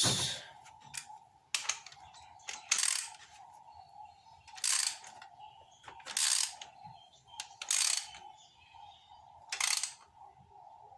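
Ratchet wrench with a spark plug socket clicking in about seven short strokes, one every second or two, as a new spark plug is tightened.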